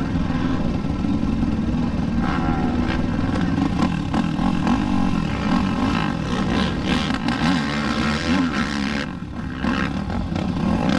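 Sport quad (ATV) engines revving up and down as riders work over a tyre obstacle section.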